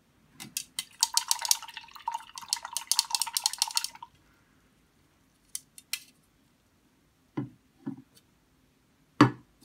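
Paintbrush swirled and rattled against the inside of a plastic cup of water, rinsing off gouache: rapid clicking and sloshing for about three seconds. A few light taps and soft knocks follow in the second half.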